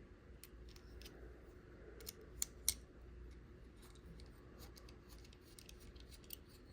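Faint small metal clicks and rattles of a screwdriver bit being fitted into the front of a keychain multitool, with three sharper clicks about two to three seconds in.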